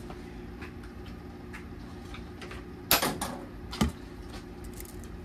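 Clanks and clicks of the Apple II Plus power supply's metal case being handled on a workbench as its bottom cover is worked off after the rivets were drilled out. There is a sharp clatter about three seconds in and another knock just under a second later, over a steady low hum.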